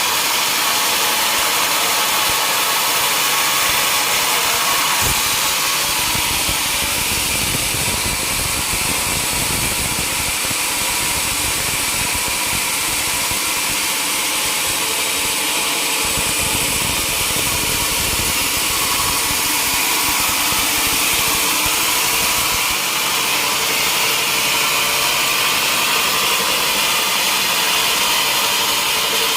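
Sawmill saw running and cutting mahogany: a steady, loud mechanical noise, with a heavier low rumble from about five seconds in until about two-thirds of the way through.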